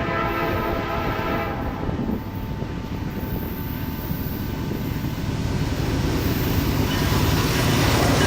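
Diesel locomotive horn sounding a chord, cutting off about two seconds in, followed by the rumble of the train rolling past, growing louder toward the end.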